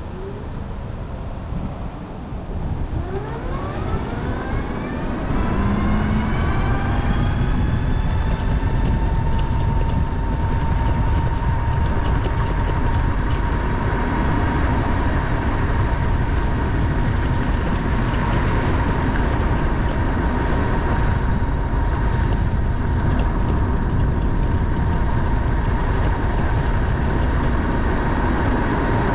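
Trike pulling away and getting up to speed: a whine rising in pitch over a few seconds, then holding one steady tone while cruising, over heavy wind and road rumble.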